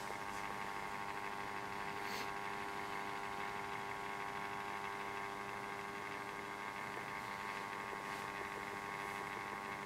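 Steady electrical hum, several even tones held without change, with a couple of faint ticks.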